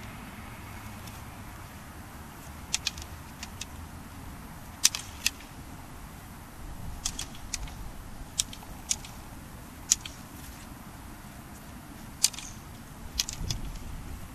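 Practice swords clacking together in sparring: about fifteen sharp clacks in irregular flurries of two or three, the loudest near five and ten seconds in.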